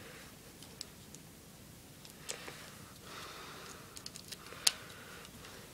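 Handling noises: a few sharp clicks and light rustling as a small portable speaker and its cables are picked up and moved, with one louder click near the end.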